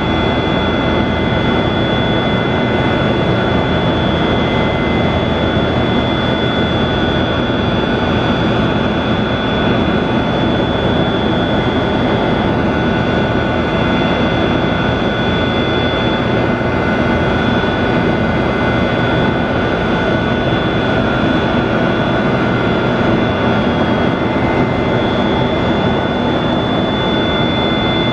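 Boeing 737-200's Pratt & Whitney JT8D turbofan engines running steadily: a loud rushing noise with a high whine on top that rises slightly near the end.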